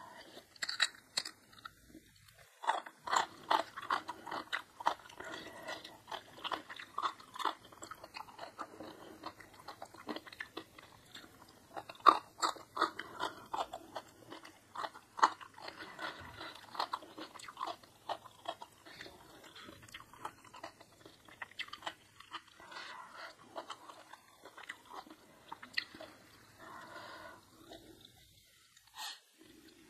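Close-miked chewing of crunchy food: many crisp crunches and bites, densest through the first half, then softer, wetter chewing toward the end.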